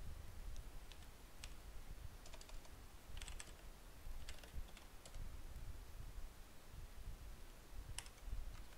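Computer keyboard typing: scattered keystrokes over the first five seconds, a pause, then one sharper keystroke about eight seconds in, over a low steady background rumble.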